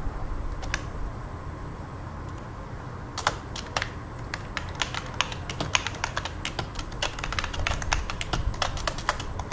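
Typing on a computer keyboard: a few scattered key clicks, then a quick, steady run of keystrokes from about three seconds in.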